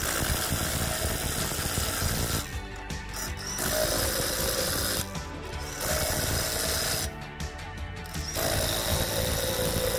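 Milwaukee M18 Fuel half-inch cordless impact wrench hammering on semi-trailer lug nuts to tighten them, in four runs of a couple of seconds each with short pauses between.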